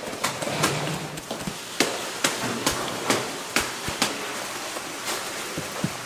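Gloved hands working chicken pieces through breadcrumbs in a large stainless-steel bowl: a steady rustle of crumbs with sharp, irregular knocks about every half second.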